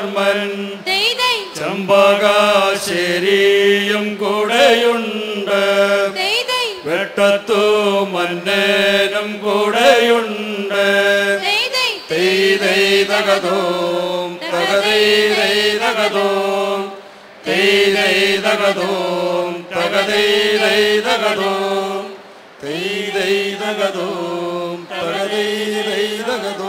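A mixed group of men and women singing a traditional Malayalam folk song in unison into microphones: a steady, chant-like melody sung in long phrases with brief breaks between them.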